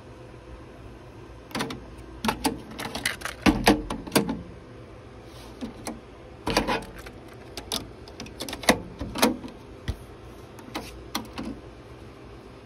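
Onkyo TA-W100 double cassette deck being worked by hand: groups of sharp plastic clicks and clunks as transport buttons are pressed, the deck A cassette door is ejected open, a cassette is loaded and the door is pushed shut.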